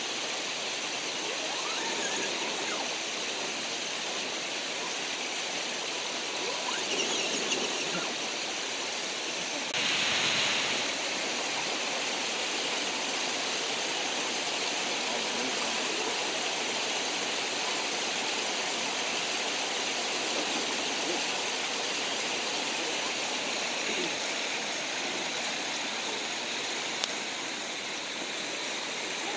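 Steady rushing of a mountain creek, an even hiss of flowing water, slightly louder for a moment about ten seconds in.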